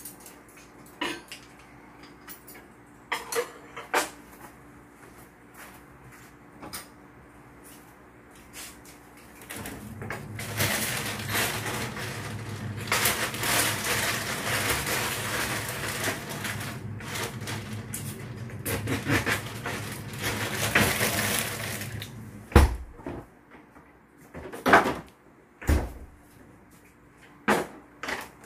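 Household clatter: scattered clinks and knocks of dishes and utensils, with a loud, steady rushing noise for about twelve seconds in the middle, then a few separate knocks near the end.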